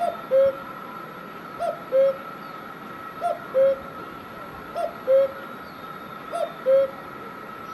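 A common cuckoo calling its two-note "cu-coo", a higher note falling to a lower one, repeated five times at an even pace of about one call every second and a half. A steady high hum runs underneath.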